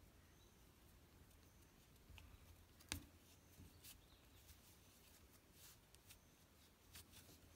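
Near silence with faint rustling and a few soft, sharp clicks from hands working yarn with a metal crochet hook. The clearest click comes about three seconds in.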